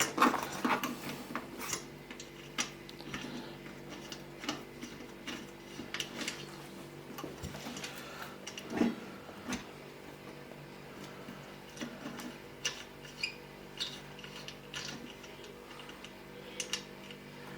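Irregular small metallic clicks and ticks of an Allen key and M4 screws being handled and fitted, with a faint steady hum underneath.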